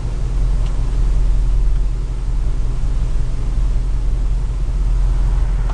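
1973 Camaro's small-block 350 V8 (two-barrel carburettor, three-speed automatic) running steadily while the car drives along, a low, even rumble mixed with road noise.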